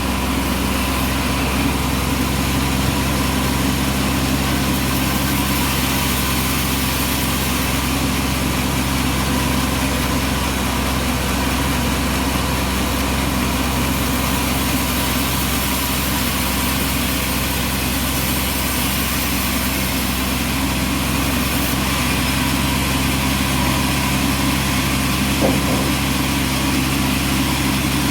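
Bandsaw sawmill's engine running steadily at an even pitch.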